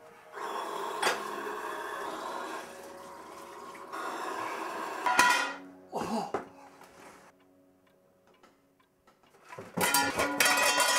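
Tap water running steadily into the sink for about five seconds, with a knock early on. After a quiet spell, pots and dishes clatter near the end.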